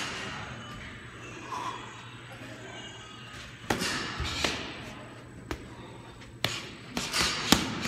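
Kickboxing sparring strikes: about half a dozen sharp smacks of kicks and punches landing on gloves, arms and shin guards, coming in the second half, the loudest near the end.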